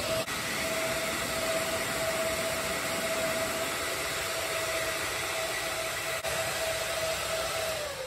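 The four cooling fans of an Everlast PowerTIG 255EXT welder run at full speed with a steady rush of air and a steady hum. Near the end their pitch falls and they quieten as they spin down: the heat-sink temperature contact has opened and the relays have switched the fans back to half power.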